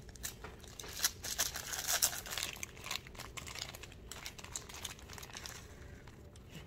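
Thin plastic bag of grated Parmesan crinkling as it is handled and opened by hand, in irregular crackles that are loudest in the first half.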